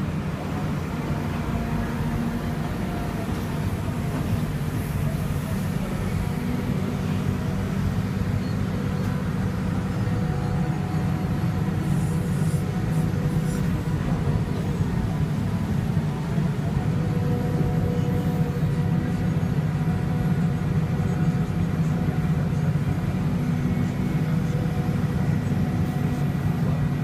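Hitachi Zaxis 350LC excavator's diesel engine running steadily while it works, heard from inside the operator's cab, with fainter whining tones coming and going over the low drone.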